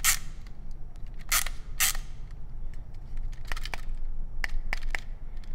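Canon Dial 35's clockwork spring motor driving the film rewind in irregular mechanical clicks and clunks, a few strong ones early, then a run of quicker, fainter clicks. It is chunking along and binding because the advance/rewind mechanism is gummed up.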